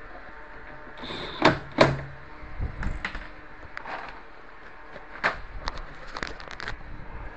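Hard knocks and clicks from parts being handled during work on a washing machine: two sharp knocks about a second and a half in, a few lighter ones, then a quick run of small clicks near the end.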